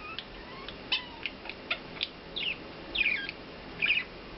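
Pet budgerigar chattering: a run of short, sharp chirps and clicks, then several scratchy warbled chirps spaced about half a second to a second apart.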